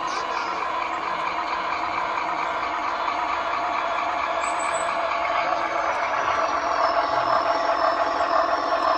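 Zimo sound decoder playing a GE U25B diesel engine sound through a G-scale model locomotive's loudspeaker, running steadily and getting louder near the end as the locomotive approaches. The owner finds that this sound set revs up too fast while the train is still moving slowly.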